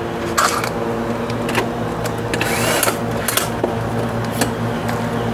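Clicks and knocks of a scooter's plastic front body panel and its screws being handled and fitted, with a short whirr of a cordless screwdriver a little past halfway, over a steady low hum.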